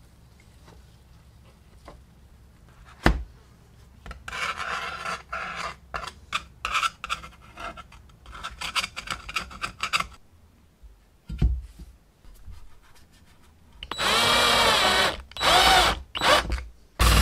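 Thin metal tool scraping softened rust sludge off a vinegar-soaked hand saw blade in irregular strokes, after a single sharp knock about three seconds in. Near the end an electric drill runs in three short bursts.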